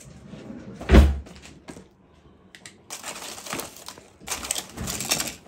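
A single heavy thump about a second in, then a stretch of rustling and small knocks as objects are handled.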